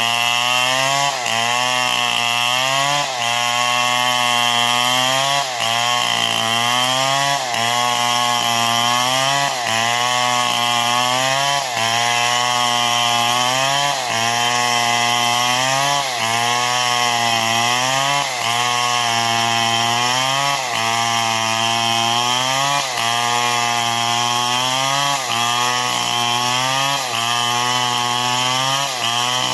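STIHL MS 070 two-stroke chainsaw cutting wood, running hard under load. Its engine pitch dips and recovers about every two seconds.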